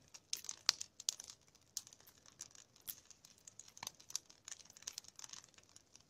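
Crackling of a nodya log fire burning along a spruce log: sharp, irregular pops and snaps several times a second, with a louder pop near the start and another about four seconds in.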